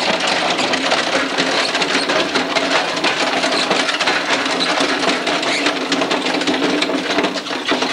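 Small gasoline lawn mower engine running steadily with a fast mechanical rattle.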